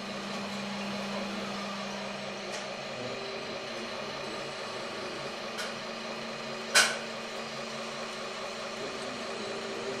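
Steady electric whir of RC model construction machines as a model low-loader's rear ramps lower, with one sharp clack about two-thirds of the way through.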